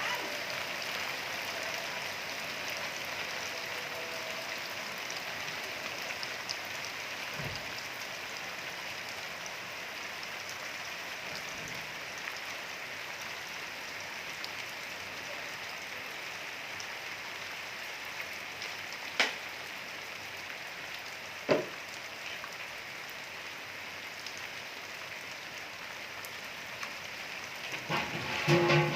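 Steady rain falling, an even hiss of drops, with two sharp knocks a couple of seconds apart about two-thirds of the way through and a brief cluster of louder sounds at the very end.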